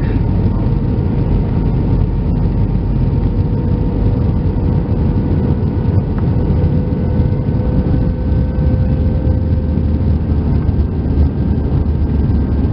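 Steady cabin noise inside an Airbus A319 airliner: a loud, even rumble of the jet engines and airflow, with a faint steady whine on top.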